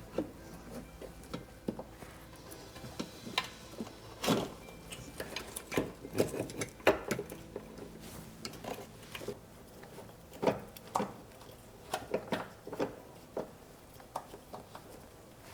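Scattered light clinks and knocks at an irregular pace, from parts and tools being handled while a fuel filter is fitted to a diesel engine.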